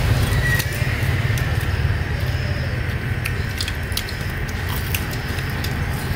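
Battered enoki mushrooms deep-frying in hot oil: scattered sharp crackles and pops over a steady low hum.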